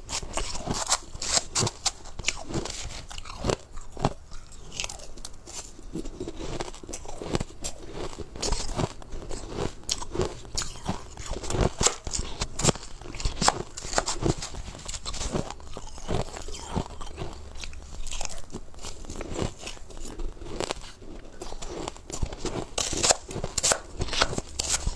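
Shaved ice being bitten and chewed, with a dense run of sharp, irregular crunches.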